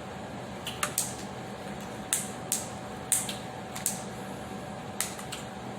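Close-miked eating: a string of short, sharp crunches and mouth clicks, irregularly spaced, from chewing fried food such as cheese fries and onion rings.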